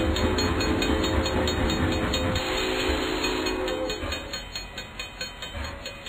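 Train sound effect: a train horn chord sounding over a low rumble and a steady rhythmic clatter of about five clicks a second. The rumble drops away about two and a half seconds in, the horn fades out near four seconds, and the clatter carries on more faintly.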